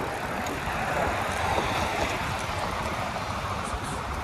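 Steady city traffic noise: the even hum of cars on the surrounding streets.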